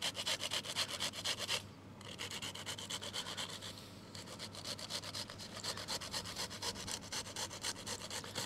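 Black summer truffle being grated on a flat stainless-steel hand grater: quick, even rasping strokes, several a second, with a short break about one and a half seconds in and another near four seconds.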